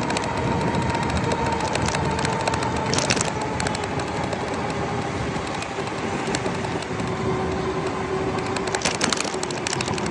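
Steady rumble of a motor vehicle, with a faint tone that slowly drops in pitch and a few scattered clicks.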